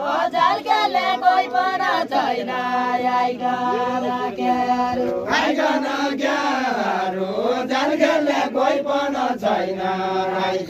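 Deuda song sung unaccompanied by a line of dancers, several voices chanting together in long drawn-out phrases; a new, louder phrase starts about five seconds in.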